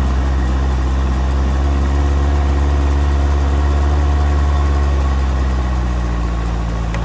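Off-road 4x4's engine running steadily at a constant speed, loud and close, with a low, even hum and no revving.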